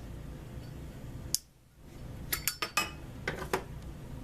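Metal lighter case and butane torch insert being handled: a sharp snap, like the lid shutting, just over a second in, then a quick run of metallic clicks and clinks.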